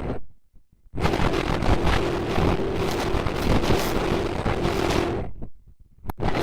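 Loud wind noise buffeting a microphone over a steady hum. It drops out twice to near silence, briefly near the start and again about five seconds in.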